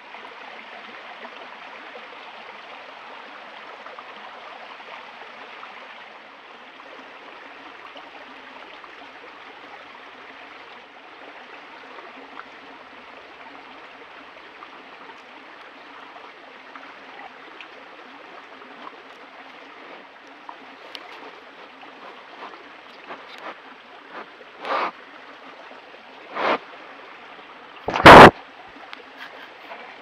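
Steady rush of a flowing creek. Near the end, three sharp knocks, the last very loud, as a black bear bumps and noses the trail camera.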